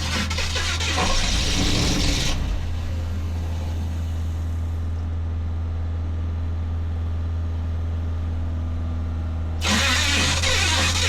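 An engine cranking on its starter without catching. The cranking stops after about two seconds and starts again near the end, over a steady low engine hum. The cranking sounds like an engine starved of fuel.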